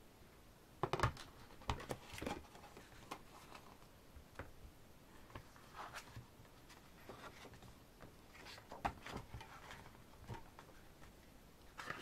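Pages of a photobook being leafed through and handled: irregular soft paper rustles and light taps, the loudest about a second in.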